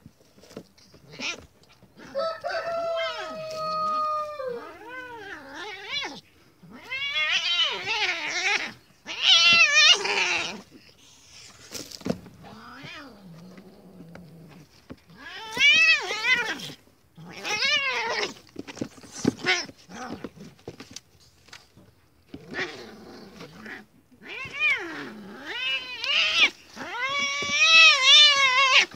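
Domestic cat screaming in long, wavering yowls, in several bouts with short gaps between them: distress cries of a cat being mauled by a dog.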